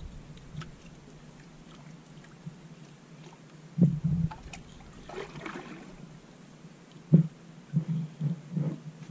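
Quiet handling noises in a small boat: a few soft knocks and thumps, the loudest about four seconds in and about seven seconds in, with a brief rustle between them.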